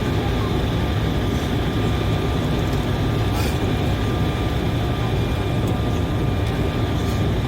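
Steady cabin noise inside an Embraer E190 airliner on approach: the drone of its two GE CF34 turbofans and the rush of air past the fuselage, with a faint steady whine over it.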